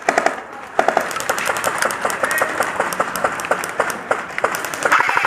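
Airsoft guns firing in an exchange: scattered single shots and short bursts of sharp clacks, then a fast, continuous full-auto burst near the end.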